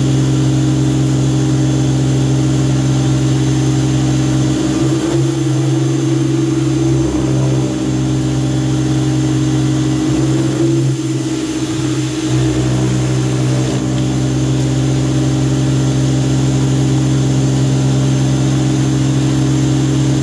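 Greenworks 2000 psi electric pressure washer running steadily, its motor and pump humming while the surface cleaner hisses water onto a plastic microgreens tray.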